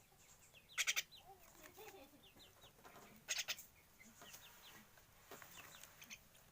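A pet Javan myna being bathed: two pairs of short hissing bursts, about a second in and again past three seconds, with light bird chirping throughout.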